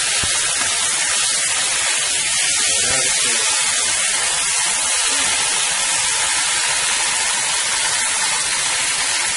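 Chicken pieces frying in hot oil in a disco (plough-disc pan), a loud, steady sizzle.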